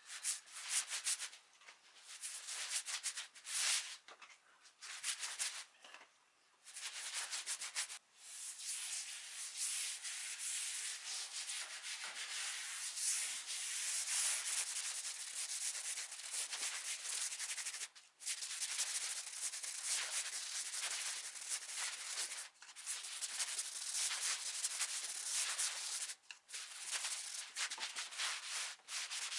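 Wood being sanded by hand with sandpaper: fast back-and-forth rubbing strokes, in runs of a few seconds broken by brief pauses.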